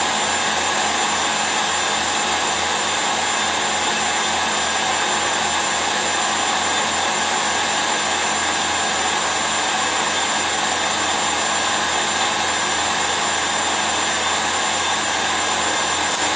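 KitchenAid Artisan tilt-head stand mixer running steadily at high speed, its wire whisk beating powdered whipped-cream mix and ice water into chantilly.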